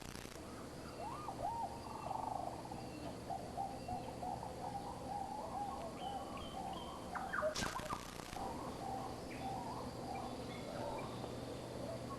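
Wild bird chatter: a busy run of short, quick chirps and calls, with a brief rustle-like noise about seven and a half seconds in.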